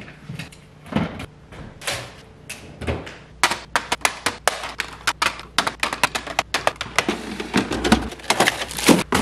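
Groceries being put away by hand: eggs set into a plastic egg tray and plastic containers moved on fridge shelves, making sharp clicks and taps. They come singly at first, then in a quick dense run from about three seconds in.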